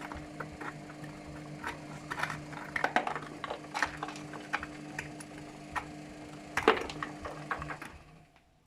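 Luxor WM 1042 washing machine on its drum-clean cycle: the motor hums steadily while the drum turns, with irregular clicks and knocks from inside. The hum stops suddenly near the end as the drum comes to rest.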